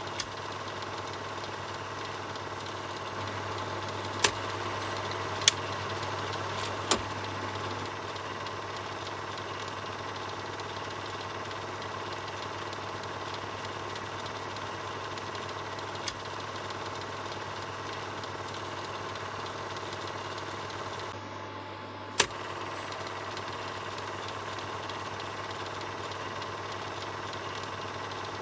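Film projector running steadily with its even mechanical whir and clatter. Five sharp clicks stand out, three close together near the start, and the running dips briefly just before the last click.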